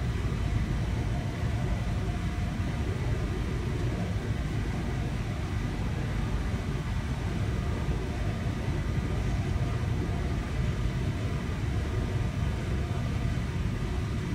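Steady low rumble of a moving train heard from inside the passenger carriage: wheels on the rails and running noise, with a faint steady high tone over it.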